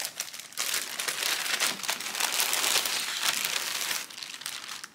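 Clear plastic bag crinkling and rustling as it is handled and a long wig is slid out of it, loudest in the middle and dying down near the end.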